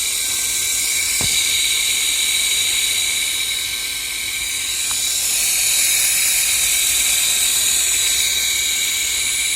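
Radiator cooling fan electric motor from a VAZ-2112, run bare on a battery with its impeller off, spinning at speed with a steady high-pitched whine and hiss. Its bearings have just been cleaned and greased, and it runs without the whistle it was taken apart for. A single short click sounds about a second in.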